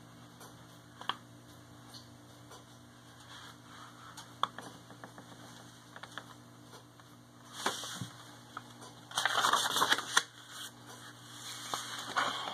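Paper pages of a picture book being handled and turned, with a few light clicks and taps, over quiet room tone; two louder spells of rustling come in the second half.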